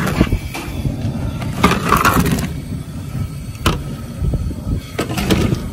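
Cobs of corn being dropped into a large pot of boiling crawfish-boil water: several splashes and knocks, some in quick clusters, over a steady low rumble.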